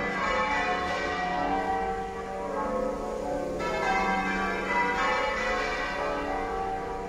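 Church tower bells rung half-muffled in call changes: the bells strike one after another in a steady, continuous sequence of overlapping ringing tones.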